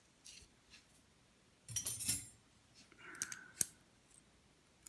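Small metal pin-tumbler lock parts clicking and clinking as they are shaken and tapped out of the lock's chambers during disassembly, with a short rattle about two seconds in and a few sharp ticks later.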